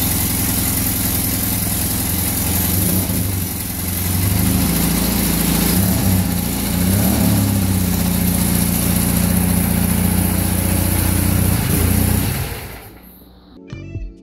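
1955 Royal Enfield Meteor's 700 cc parallel-twin engine running just after starting, idling with the revs rising and falling a little in the middle. The sound fades out near the end.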